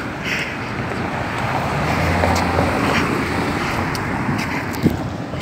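A car passing along the street, its engine and tyre noise swelling to its loudest about two to three seconds in and fading, with one sharp knock near the end.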